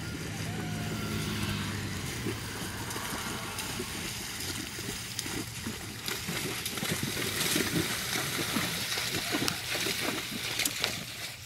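Tennessee Walking Horse wading at a walk through shallow pond water, its hooves splashing and sloshing with each step. The splashing grows louder about halfway through.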